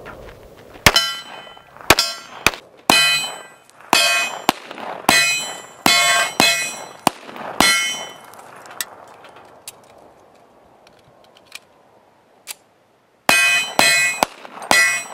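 Rapid gunfire with steel targets ringing on each hit. Each shot is a sharp crack followed by a metallic ring. About eleven rounds come in quick succession over the first eight seconds, then after a pause of about five seconds four more rounds follow near the end.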